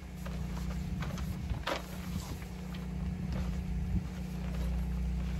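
A steady low mechanical hum runs under light rustling of the tarp shed door and a few soft clicks as its bungee cord ties are handled.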